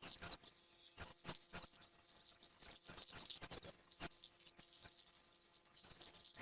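A mouse squeaking and chirping: many short, very high-pitched squeaks with small clicks, in quick irregular runs, thinning out for a moment a little past the middle.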